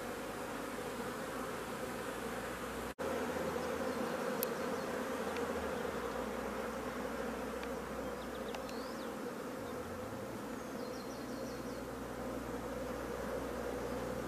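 Honeybee colony buzzing: a dense, steady hum of many bees, broken by a brief dropout about three seconds in.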